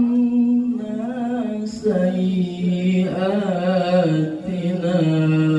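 A man's solo Quran recitation in the melodic tilawah style: long held notes with wavering ornaments. The melody steps lower about two seconds in and again near the end.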